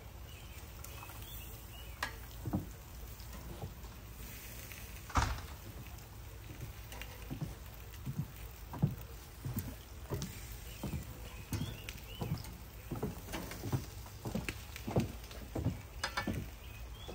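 Metal grill tongs clicking and knocking against the grate and a metal tray as burgers are lifted off the grill and set down, a string of short irregular clicks and taps, two louder knocks about five and nine seconds in.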